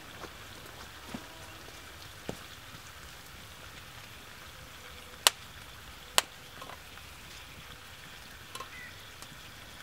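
Vegetables sizzling and steaming in a cast-iron skillet over an open wood fire, a steady hiss, with two sharp clicks a second apart about five seconds in and a utensil stirring the pan near the end.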